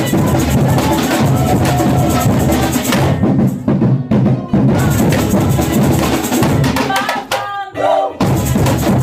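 Samba batucada ensemble of surdo bass drums, repiniques and a jingle shaker playing a loud full-band groove. Twice it drops out briefly, about three seconds in and again near the end, when a voice briefly sings over the gap before the drums come back in.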